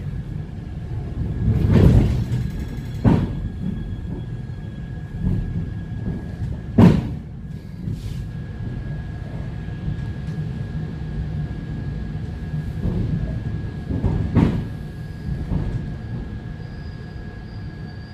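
Passenger saloon of an ET2M electric multiple unit under way: a steady low rumble of the running train with a faint steady high whine, broken by a few sharp knocks. The rumble eases off near the end.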